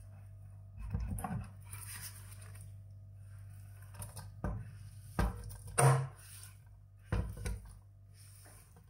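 Silicone spatula scraping shredded zucchini and carrot off a wooden cutting board into a nonstick frying pan. Several short knocks of board and spatula against the pan, the loudest about two-thirds of the way through, over a steady low hum.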